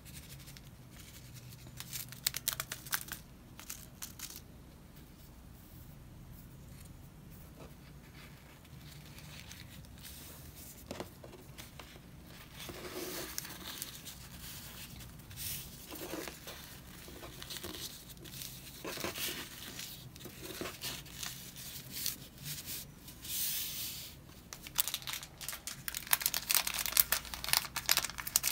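Hands handling a paper towel and small clear plastic seed packets: scattered rustling and crinkling, with a few sharp clicks early and dense crinkling toward the end.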